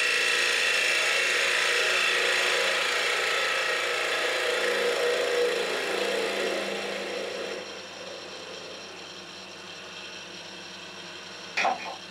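Half-inch spindle gouge cutting the face of a spinning oak blank on a wood lathe: a steady scraping of shavings coming off. The cut fades about two-thirds of the way through, leaving the lathe running, and a single sharp knock sounds near the end.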